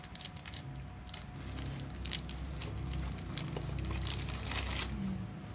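Clear plastic wrapper crinkling as it is handled and unwrapped, in several short rustles, the longest about four seconds in, over a steady low hum.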